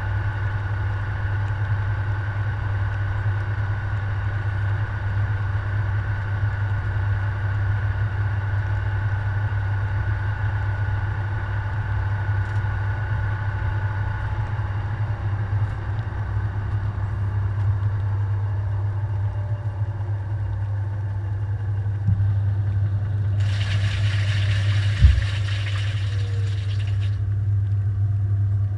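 Washing machine running, heard from inside the drum: a steady low hum, with a motor whine that slowly falls in pitch partway through. Near the end comes a rushing hiss lasting about three and a half seconds, with a single thump inside it.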